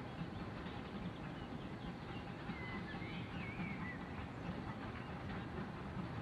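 Small farm steam train running in the distance, a steady low rumble, with a few bird chirps around the middle.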